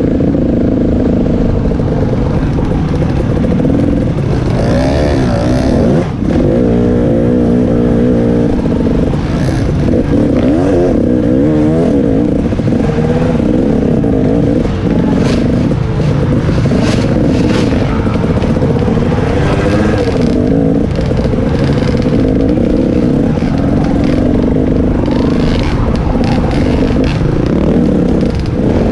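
KTM 300 XC-W Six Days two-stroke dirt bike engine revving up and down with the throttle as it is ridden over rough trail, with clatter and knocks from the bike as it runs over the bumps.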